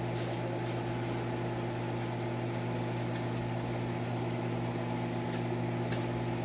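A kitchen appliance running with a steady electrical hum, with a few faint light ticks over it.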